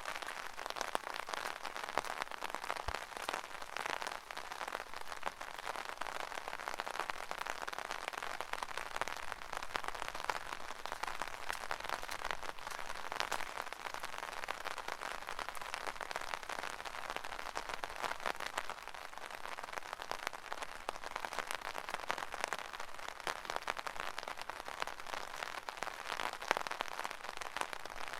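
Rain falling on an umbrella: a steady, dense hiss of countless small drop hits on the canopy, with a few sharper, louder drops standing out now and then.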